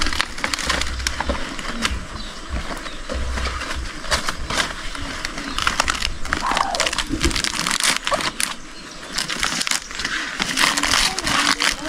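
Banana leaves rustling and crinkling with many short crackles as they are folded and tucked over matooke in a pot to cover it for steaming.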